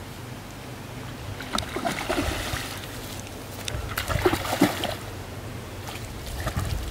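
A hooked fish thrashing at the water surface on a taut fishing line, splashing in two bouts: one about a second and a half in, and another about four seconds in.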